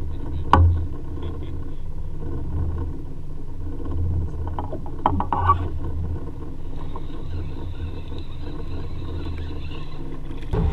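Small boat's outboard motor running steadily at low speed, a continuous low rumble. A sharp knock comes about half a second in, and a few clicks and rattles follow around five seconds in.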